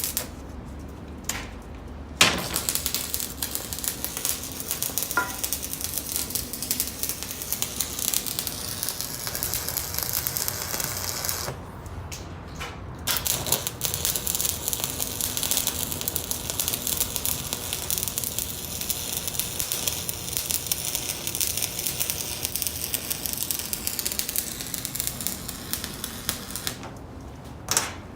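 Electric arc welding on the steel floor plate of a truck crane: a steady crackling sizzle of the arc. It stops briefly about 2 seconds in, again around 12 seconds, and near the end, between weld runs.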